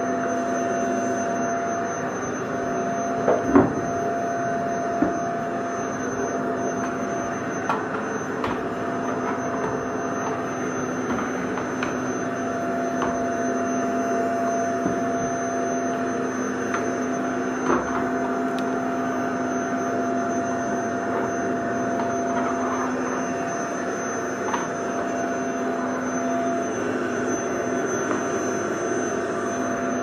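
Vacuum cleaner running steadily, a constant rushing motor noise with a steady hum in it. A few light knocks sound over it, the strongest about three and a half seconds in.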